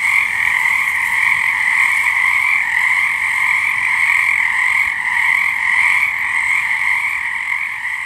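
A dense chorus of frogs, many overlapping calls merging into one steady sound; it starts abruptly and fades out near the end.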